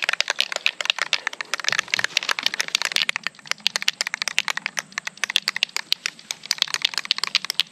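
Aerosol spray-paint can of dark brown camouflage paint being shaken: the mixing ball inside rattles in rapid, irregular clicks that mix the paint before spraying.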